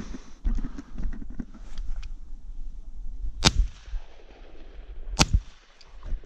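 Two shotgun shots about a second and a half apart, each a sharp crack with a short tail, fired at passing thrushes.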